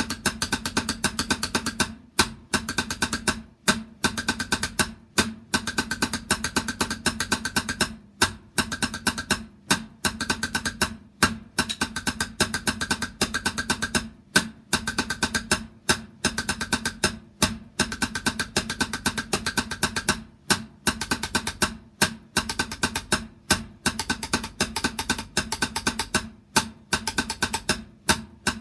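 Drumming: rapid strokes in short repeating phrases, each about a second and a half long, with brief breaks between them.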